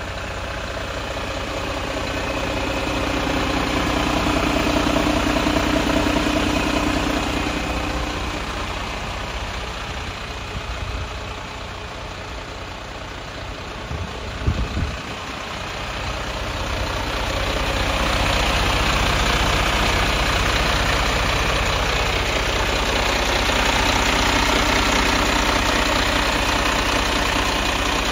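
Mercedes-Benz Atego 1530's six-cylinder diesel engine idling steadily, growing louder and fainter in slow swells. A few short knocks come about halfway through.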